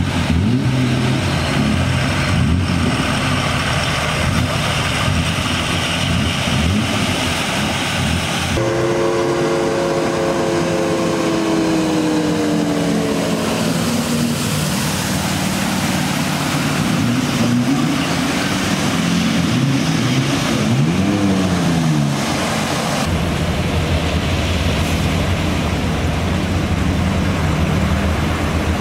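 Cars and trucks driving through deep floodwater on a street, engines running over splashing water. About nine seconds in, a passing vehicle's engine tone falls steadily in pitch.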